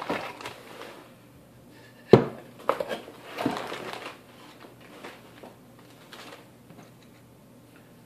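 Handling of a small fanless mini PC and its cardboard box: packaging rustles, then a sharp knock about two seconds in and two lighter knocks as the finned metal case is set down on a wooden table.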